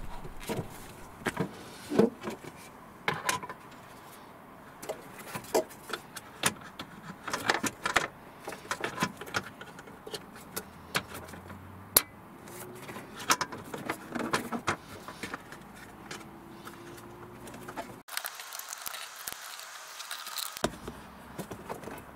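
Irregular clicks, taps and light rattling of small parts and tools being handled, scattered through with no steady rhythm.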